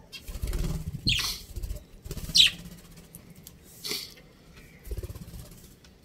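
Small caged parrots giving three short, sharp chirps that fall in pitch, the second the loudest, with bouts of low rumbling noise around them.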